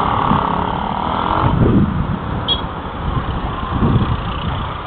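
Roadside traffic: small motorcycle engines running and passing, heard through a security camera's microphone, with a steady low noise throughout.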